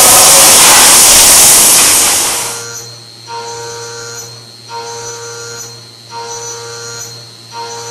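Optimum F100 TC CNC milling machine at work: a loud rushing hiss for about the first two and a half seconds, then a steady low hum with a pitched whine that rises and drops away about every one and a half seconds, four times, as the machine moves through repeated passes.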